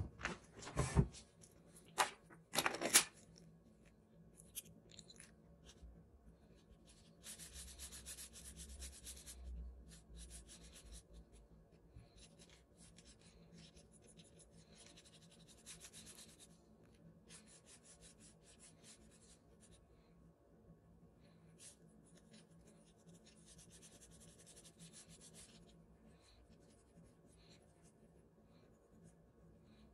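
Charcoal pencil scratching across brown paper in bursts of strokes a few seconds long, with pauses between, as a knife outline is sketched. Several sharp knocks in the first three seconds are the loudest sounds.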